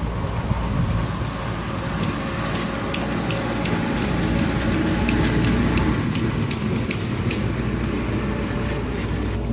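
Water sloshing and splashing as a herd of water buffaloes wades through a river, over a steady low rumble, with scattered sharp clicks and a thin, steady high whine.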